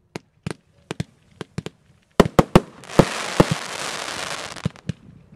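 Fireworks firing: sharp reports at first, one or two a second, then a quick cluster of louder bangs about two seconds in. A loud hiss of spraying sparks follows and lasts nearly two seconds, and a couple more reports come near the end.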